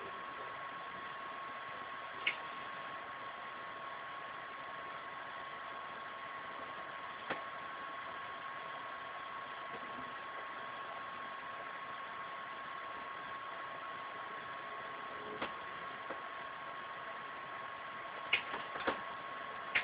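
Steady background hiss with a thin, constant high whine, broken by a few faint small clicks, with most of them close together near the end.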